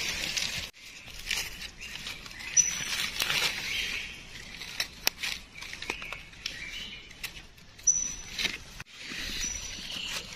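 Dry leaf litter and twigs crackling and rustling in irregular clicks, as from footsteps and hands moving through them, with a few short high chirps.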